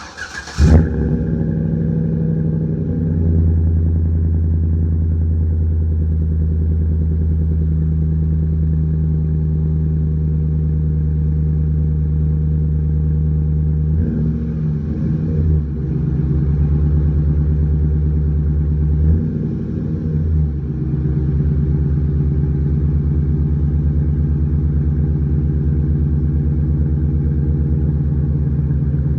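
2013 Chevrolet Silverado's 5.3-litre V8 cold starting, heard at the exhaust through a Flowmaster 40 series muffler: a short crank, the engine catches with a brief flare, then runs at a steady cold idle. The idle note wavers briefly twice, about halfway through and again a few seconds later.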